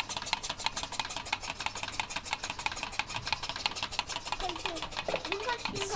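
Fast, even clicking, about ten clicks a second. A voice speaks faintly near the end.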